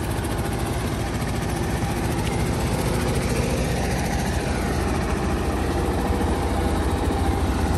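An engine idling steadily, its sound deep and even.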